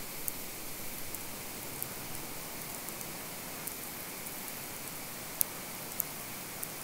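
Steady electromagnetic static hiss picked up by an induction-coil EM field microphone (Lom Priezor), with a few sharp crackling clicks, the strongest about five and a half seconds in and another at six seconds.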